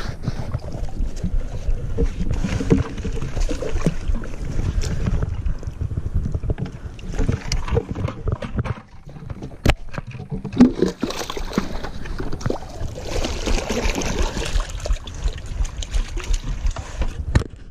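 Water splashing and sloshing around a wader's legs and a plastic bucket as someone wades through a shallow stream, with many small knocks and a low rumble of the camera moving with the body.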